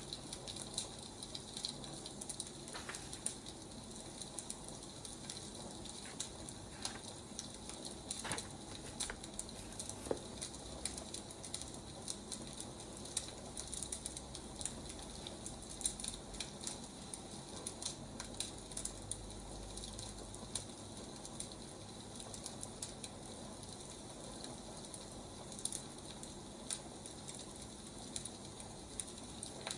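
Firewood burning: a steady hiss with frequent irregular crackles and pops.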